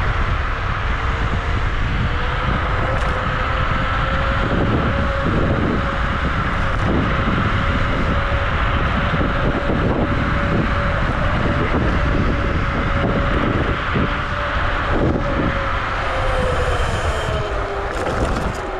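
Wolf Warrior electric scooter's dual electric motors whining at speed, the pitch creeping up slightly, then dropping near the end as the scooter slows. Heavy wind rumble on the chest-mounted microphone lies under it.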